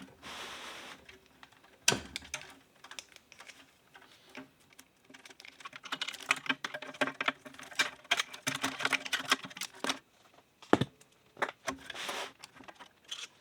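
Irregular clicks and rattles of plastic connectors, cable clips and metal parts being handled inside an opened desktop PC case. There is a sharp click about two seconds in, a dense run of rapid clicking in the middle, and another sharp click near the end.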